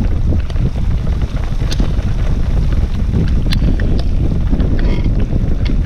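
Wind buffeting the microphone in a loud, steady low rumble, with scattered sharp ticks of rain striking the boat-mounted camera.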